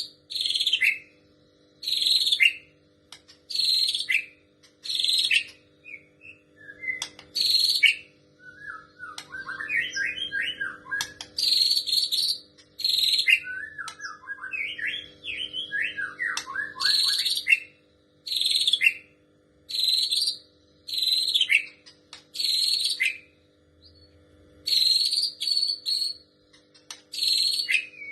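Young white-rumped shama singing, repeating short harsh rasping calls about once a second in imitation of a female prinia's call. Twice it breaks into lower warbling phrases between them.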